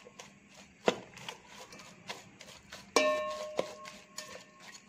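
A plastic spoon stirring prawns in a thick masala marinade inside an electric cooker's metal pot: soft scraping with a few knocks of the spoon against the pot. The loudest knock, about three seconds in, leaves the pot briefly ringing.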